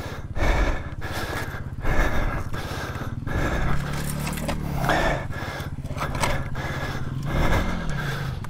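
Dirt-bike engine idling, its pitch rising briefly about halfway through and again near the end, with a rider's heavy breathing in bursts every second or so just after a crash.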